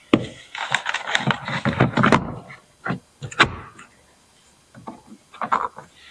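Handling noise as a 6x9 car speaker is fitted into a car door's speaker opening: a run of clicks, scraping and rustling in the first two seconds, two sharp knocks about three seconds in, then a few more clicks near the end.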